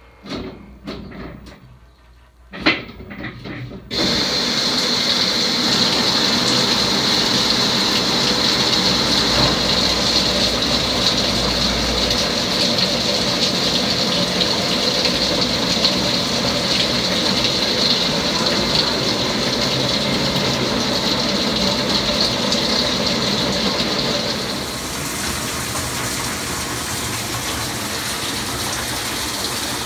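Water gushing into the stainless-steel drum of an LG WT7800 top-load washer as it fills for a tub-clean cycle: a steady rush that starts about four seconds in, after a few knocks and clicks. It gets a little quieter and duller near the end.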